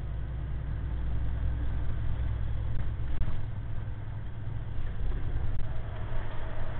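Heavy truck's diesel engine running, heard from inside the cab as a steady low drone.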